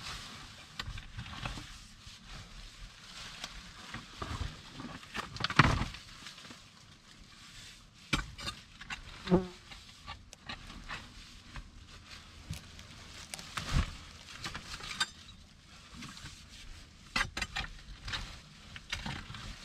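Hand digging in soil, stones and dry leaves: irregular scrapes, rustles and knocks from a pick and scoop, with a few sharper knocks, the loudest about a third of the way in.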